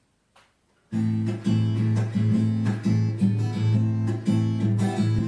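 Instrumental introduction of a song: an acoustic guitar strumming chords in a steady rhythm, starting about a second in after near silence.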